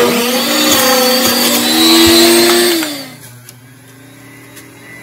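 Hamilton Beach centrifugal juicer switching on loud, its motor whining and grinding as apple pieces are pushed down the chute. About three seconds in the pitch falls and it settles to a much quieter steady hum.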